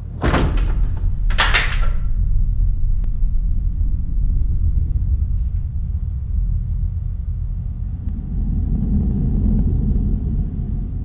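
Low, steady rumbling drone of suspense sound design, broken by two loud bangs about a second apart in the first two seconds; the rumble swells again near the end.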